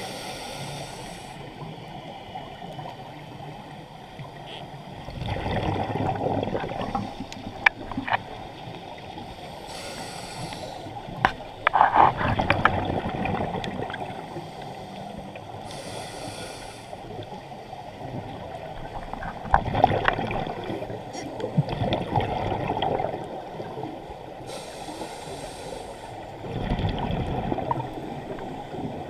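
Scuba regulator breathing heard underwater: a short hiss on each inhale, then a longer gurgling rush of exhaled bubbles, one breath every six to nine seconds, with a few sharp clicks between.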